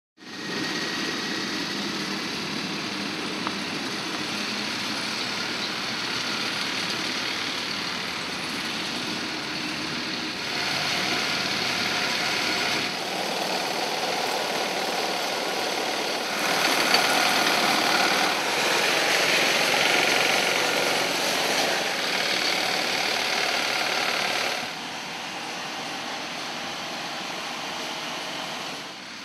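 Ride-on lawn mower engines running steadily as they cut grass. The sound steps louder or quieter a few times, about ten, thirteen, sixteen and twenty-five seconds in.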